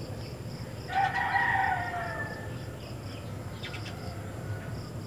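A rooster crows once, a long call that starts about a second in and falls slightly in pitch as it fades. A faint high chirping of insects repeats a few times a second underneath.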